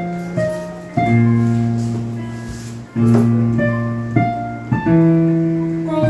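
Digital piano played four-hands by two players: low sustained chords struck and changed about every second or two under a moving higher melody.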